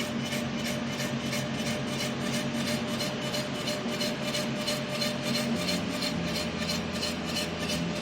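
Home-built SLS 3D printer running: a steady mechanical hum and whir with a fine rhythmic flutter and several steady motor tones. The low tones step to a new pitch about five and a half seconds in.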